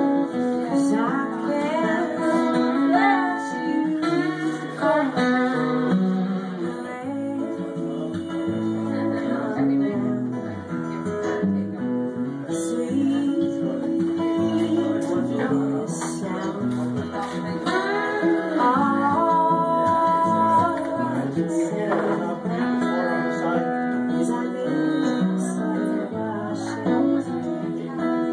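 Live acoustic duo: two acoustic guitars strummed and picked while a woman sings the melody into a microphone.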